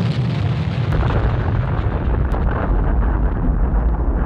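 Massive explosion: a loud, continuous deep rumble with scattered crackles over it.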